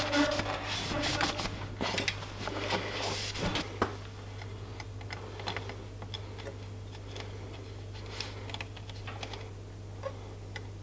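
Hands fitting a self-adhesive chainstay protector on a road bike: rustling and rubbing for the first few seconds, then faint scattered taps and small clicks as fingers press the strip onto the chainstay, over a steady low hum.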